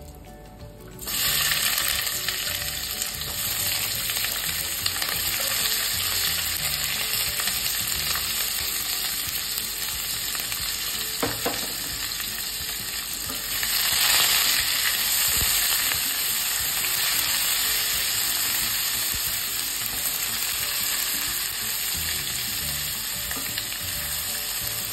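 Sliced onions and chopped ginger dropped into hot oil, ghee and cumin in a stainless-steel kadai: a loud sizzle breaks out suddenly about a second in and carries on as steady frying. It swells again about halfway through, and the onions are stirred with a spatula near the end.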